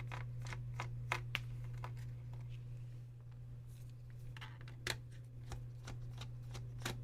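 Scattered light clicks and taps from a Dell laptop's plastic case being handled, over a steady low hum.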